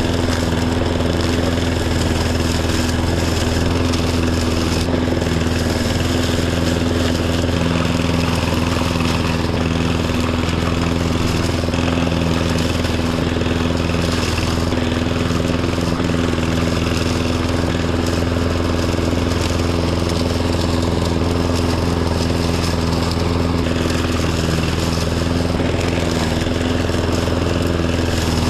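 Riding lawn tractor's engine running steadily under load with the mower deck engaged, a constant drone with no change in speed.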